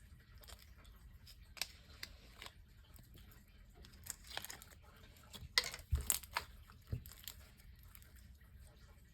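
Slime being mixed and squished by hand, giving faint, scattered sticky clicks and pops that cluster together for a couple of seconds past the middle.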